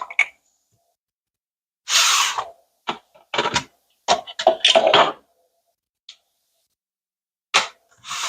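Irregular short knocks, clatters and rustles of small plastic kitchen-gadget parts being handled on a counter, with silence between them.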